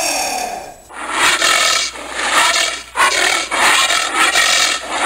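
Giant anteater calling: a pitched call that falls away in the first second, then a series of harsh, rasping calls, each about a second long with short gaps between them.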